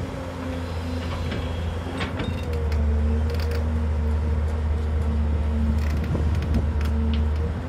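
JCB tracked excavator's diesel engine working under hydraulic load as the bucket digs into soil. About two and a half seconds in, the engine labours harder, its note dipping slightly and growing louder, with scattered clicks and creaks.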